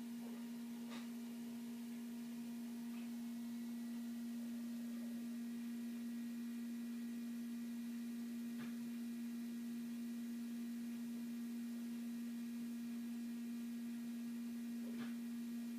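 A steady hum at one fixed pitch, with three faint short sounds: about a second in, near the middle and near the end.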